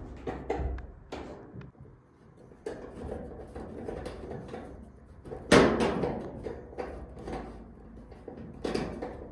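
Sheet-metal dryer cabinet parts being handled during reassembly: irregular knocks and rattles, with one loud bang about halfway through and a few more knocks near the end.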